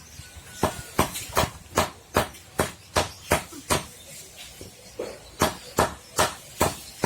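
Hammer blows in quick, even succession, about two and a half a second, in two runs broken by a short pause about four seconds in.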